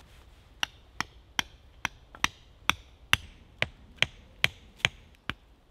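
Small tent stakes being hammered into the ground to peg down the base of a canvas tent wall: a steady run of sharp strikes, about two or three a second, beginning about half a second in.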